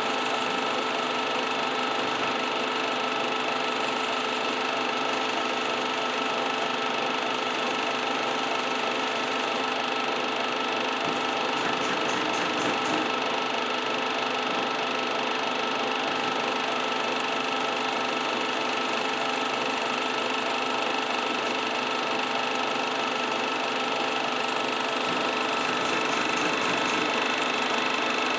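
Small rod-building lathe motor running steadily with a constant whine, turning a cork grip that is being sanded down with coarse abrasive paper.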